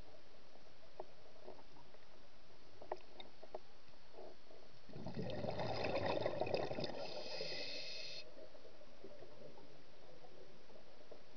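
Steady underwater hiss with a few faint clicks. About five seconds in comes a burst of bubbling and rumbling that lasts roughly three seconds.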